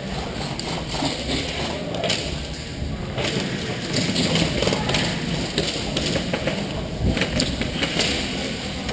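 Scattered thuds and rustling from a player moving with gear, close to a body-worn action camera, over a steady noisy background.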